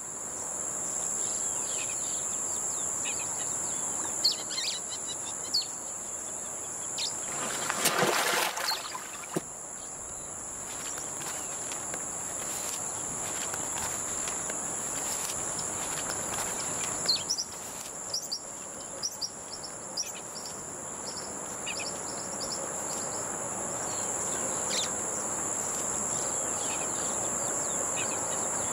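Forest ambience: a steady high-pitched insect drone with scattered short bird chirps, and a brief louder rush of noise about eight seconds in.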